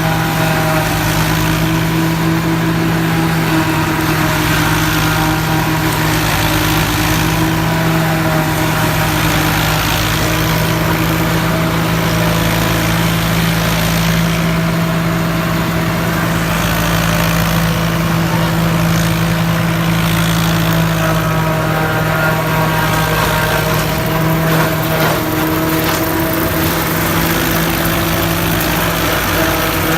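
Tractor engine running steadily, driving a silage chopper harvesting maize, with an even machine drone.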